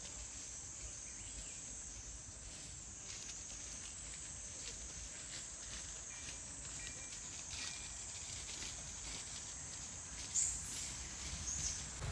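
Steady outdoor ambience with a high, even insect drone and scattered faint ticks. Two short high squeaks come near the end.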